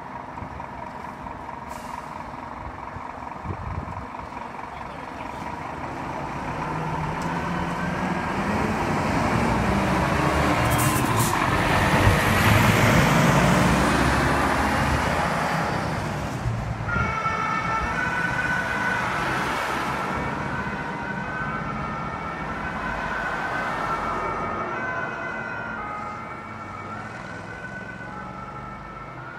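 Fire engine pulling out and passing close, its diesel engine growing loud and then fading as it drives away. About halfway through, its two-tone siren starts, alternating between two pitches and fading with distance.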